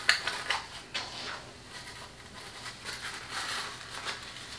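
Tulle netting rustling as a tulle wreath is pressed and handled, with a few light taps in the first second.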